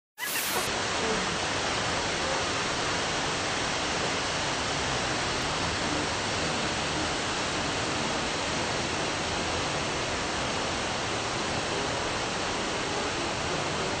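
Waterfall pouring over rock into a pool: a steady, even rush of falling water.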